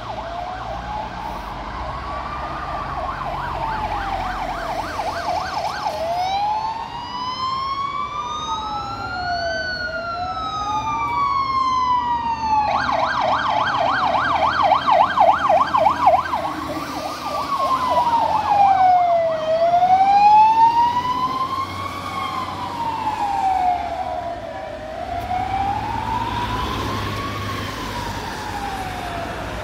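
Sirens of Mercedes-Benz fire engines on an emergency run, wailing slowly up and down about every five seconds and switched twice to a rapid yelp. Two sirens overlap out of step for a while, loudest as the trucks pass, with their engines rumbling near the end.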